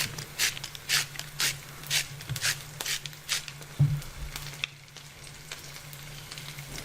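Hand-cranked spiralizer cutting zucchini into noodles: crisp rhythmic scraping strokes, about two a second, easing off after about three and a half seconds, over a low steady hum.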